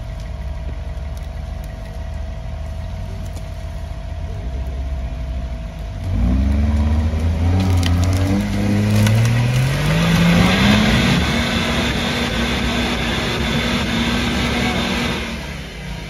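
Off-road vehicle engine running at low revs, then picking up about six seconds in. The revs climb steadily and are held high for several seconds with a rushing hiss, then drop off just before the end.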